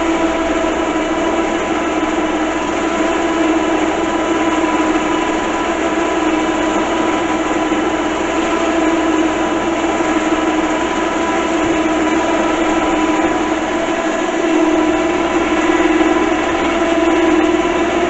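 Electric winch motor running steadily with a constant whine, spooling its cable.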